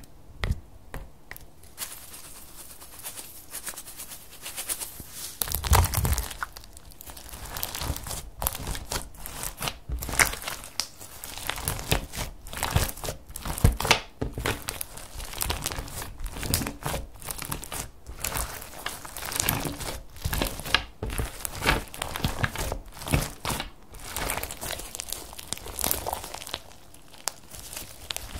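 Hands squeezing and kneading bead-filled glitter slime, a dense, near-continuous crackle of small clicks and squelches. It is sparser for the first two seconds, then busy.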